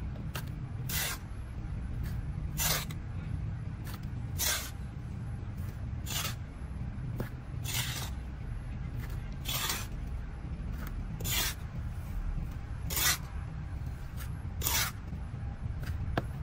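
Repeated short scraping strokes, one about every second and three quarters, over a low steady rumble.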